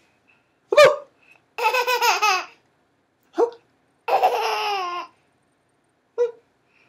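A baby laughing and squealing in five high-pitched bursts. Two are longer, each about a second, with the pitch falling away, and short ones come between them and near the end.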